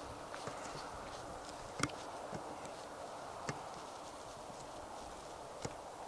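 Steady outdoor background hiss with a faint low hum, broken by three sharp clicks about two seconds apart.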